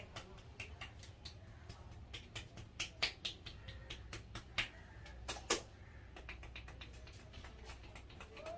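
A barber's hands tapping and slapping on a person's head during a head massage: quick, irregular sharp taps, several a second, with a few louder slaps in the middle, over a low steady hum.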